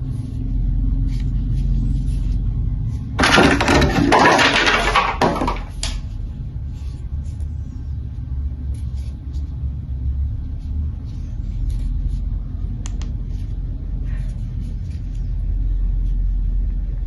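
Unboxing handling noise: small clicks and knocks of packaging being handled over a steady low rumble, with a loud burst of rustling or tearing packaging about three seconds in that lasts about two and a half seconds.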